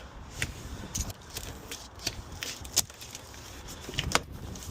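Unpacking a boxed inverter: irregular knocks, scrapes and crackle of cardboard and packing material being handled, with a sharper knock just under three seconds in and another about four seconds in.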